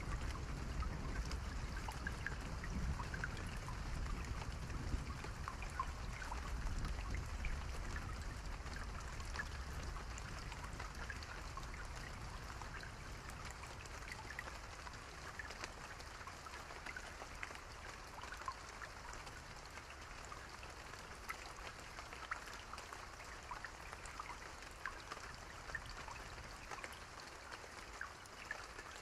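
Steady rain, with many individual drops ticking sharply over an even hiss. A low rumble under it fades away over the first half.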